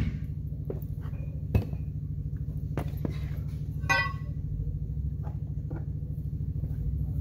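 Steady low machine hum, with a few scattered knocks and one ringing metal clink about four seconds in, typical of steel tools being handled.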